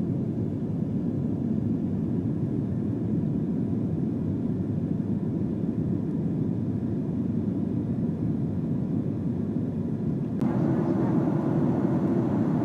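Airliner cabin noise: a steady low rumble of engines and airflow. About ten seconds in it steps up suddenly, louder and brighter.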